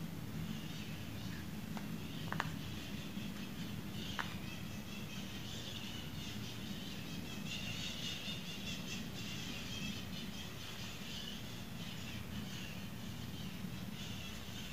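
Quiet background: a steady low hum under a faint, uneven high hiss, with a few soft clicks, the loudest about two and a half and four seconds in.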